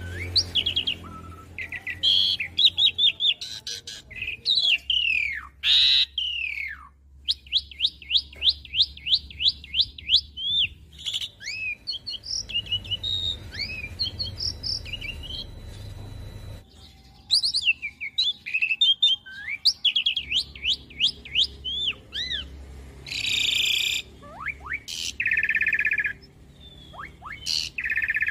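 Asian pied starling singing a long, varied song of whistled and slurred gliding notes. A quick run of repeated notes comes early on, and harsh, rasping notes come near the end.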